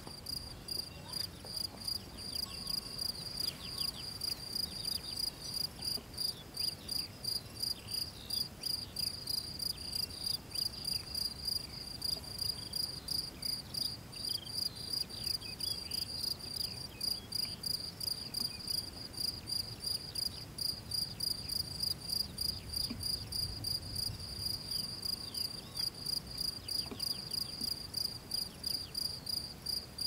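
A cricket chirping steadily, about three short, high chirps a second, with faint falling chirps from other small creatures now and then.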